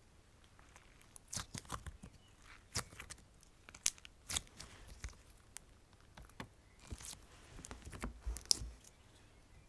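Red jelly slime squeezed and handled in the hand, giving quiet, irregular wet clicks and crackles, with a couple of low thuds near the end.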